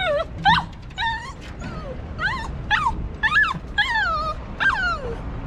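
A Cavalier King Charles Spaniel whining and yelping in a run of about nine short high-pitched cries, roughly two a second, many sliding down in pitch. The cries are fear and protest at crossing a wooden walkway with water on both sides.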